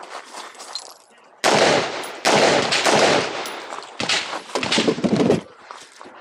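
Rapid pistol fire at close range: a quick string of shots starts about a second and a half in and a second string follows almost at once, then several more separate shots come a little later.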